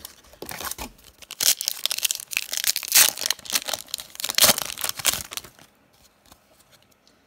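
A foil trading-card pack wrapper being torn open and crinkled by hand: a run of loud crackling and tearing that dies down to faint handling near the end.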